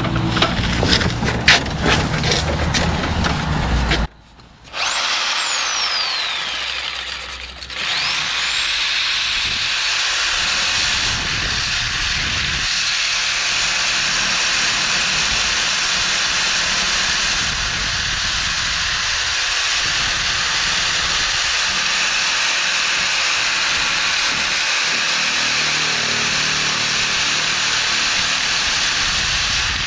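Clattering knocks for the first few seconds. Then, after a brief break, a power tool, likely an angle grinder, winds down and spins back up. It runs on with a steady high whine over a loud hiss, cutting.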